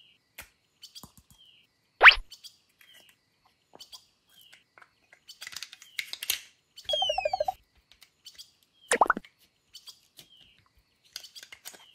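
Added cartoon sound effects: a quick rising plop about two seconds in and another about nine seconds in, with falling whistle-like glides and a warbling tone around seven seconds. Small repeated bird-like chirps come every second or so throughout.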